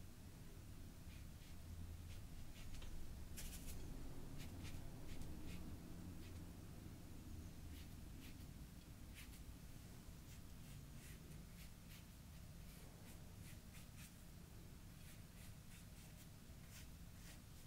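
Faint, short scratchy strokes of a fine paintbrush being drawn across the painting, many in quick succession, over a low steady room hum.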